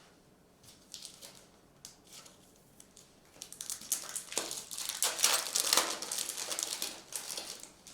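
A foil trading card pack wrapper being torn open and crumpled by hand: a few light clicks and rustles, then about four seconds of dense crinkling in the second half.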